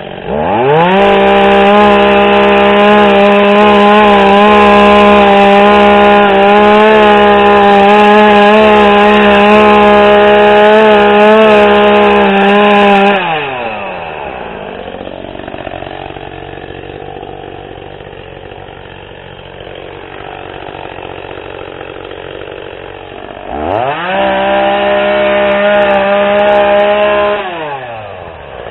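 ECHO two-stroke chainsaw revved to full throttle, cutting overgrown hedge branches for about twelve seconds, then dropping back to idle. About ten seconds later it is revved up again for a few seconds and falls back to idle near the end.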